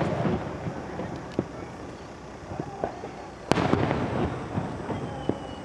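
Aerial firework shells bursting in a fast-firing starmine: a few small pops, then a loud bang about three and a half seconds in, followed by crackling and a rumbling echo.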